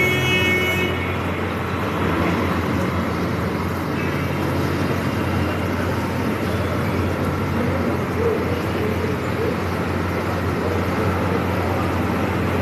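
Steady road traffic noise, with a car horn sounding that cuts off about a second in.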